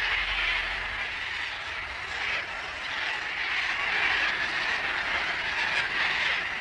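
A large flock of sulphur-crested cockatoos calling all at once, blending into a steady, harsh wash of sound with no single call standing out.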